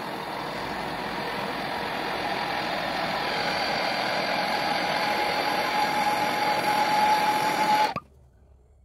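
Hot Devil MAP gas hand torch burning with a steady hissing flame, with a thin whistle running through it, as it heats a steel branding iron. The flame cuts off abruptly about eight seconds in.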